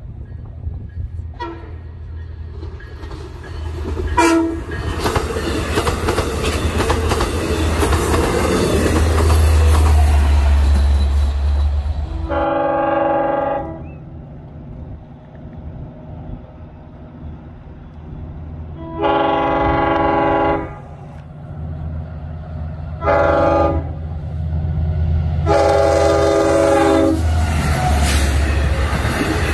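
Long Island Rail Road diesel locomotive's five-chime Nathan K5 air horn sounding the grade-crossing signal, long, long, short, long, over the low drone of the passing train. A couple of sharp clanks come in the first few seconds, and near the end the C3 bilevel coaches roll past with clickety-clack of the wheels.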